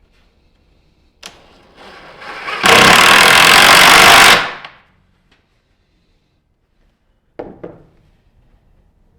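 A power tool runs for about two seconds, very loud, starting with a click and a short build-up and then cutting off. A short knock or clatter follows a few seconds later.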